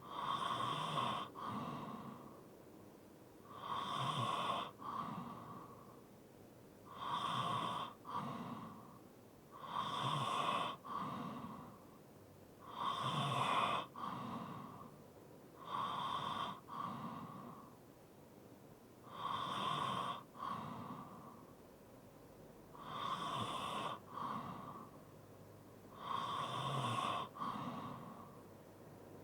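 A person breathing heavily in sleep with light snoring: slow, regular breaths, about one every three seconds, each loud in and out with a quiet pause between.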